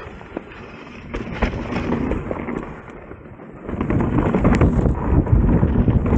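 Mountain bike descending a rough trail: wind buffets the microphone over the low rumble of the tyres, with scattered rattles and clicks from the bike. It gets louder a little past halfway.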